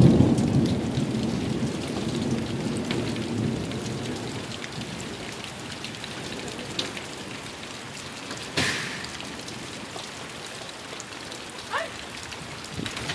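Steady rain falling, with a low rumble of thunder dying away over the first few seconds. A few sharp taps break through the rain, the loudest about eight and a half seconds in.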